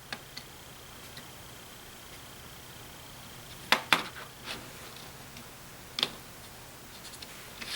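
A few light, sharp clicks and taps from handling 1/2-inch PVC pipe and a tape measure while marking the pieces for cutting, with two close together about four seconds in.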